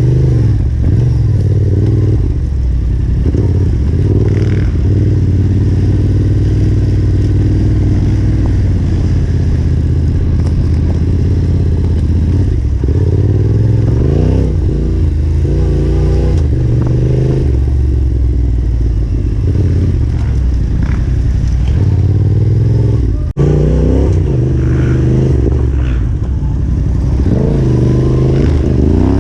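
Yamaha Ténéré 700's parallel-twin engine riding off-road, the revs rising and falling again and again with the throttle, with clatter from the bike over rough ground.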